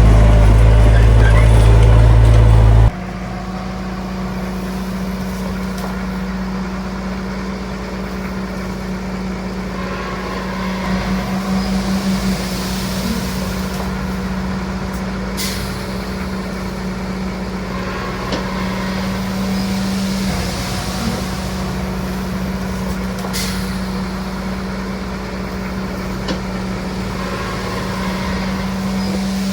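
Heavy diesel engine of an earthmoving machine running under load. A louder, deeper engine sound stops abruptly about three seconds in, and a steady engine drone follows. Two brief hisses come through the middle and later part.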